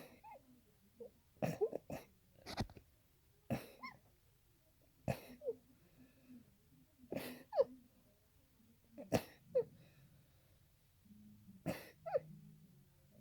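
A person sneezing over and over in an allergy sneezing fit, about eight sneezes, one every second or two. Each sneeze is a sharp burst of air ending in a short vocal sound that drops in pitch.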